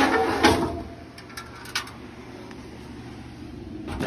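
Sheet-metal furnace parts being handled: a loud scrape and clatter in the first second, then a few light clicks and knocks.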